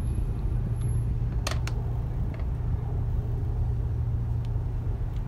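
A steady low rumble with two short, sharp clicks close together about a second and a half in.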